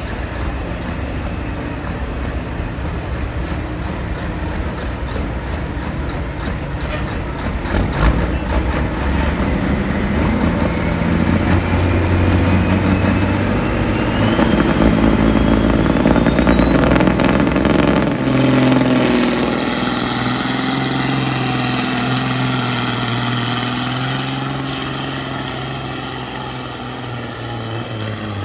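Diesel semi truck engine run hard while pulling a weight-transfer sled, building in loudness, with a high whine that climbs steadily in pitch for about nine seconds, then holds a steady high tone.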